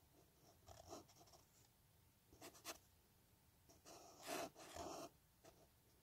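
Faint felt-tip marker nib scratching across paper in a few short drawing strokes, the longest and loudest about four seconds in.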